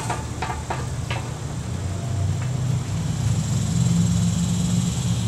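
A steady low engine drone that grows a little louder after the middle, with a few light clicks and scrapes in the first second or so as a cloth bundle is handled over a metal sieve and pan.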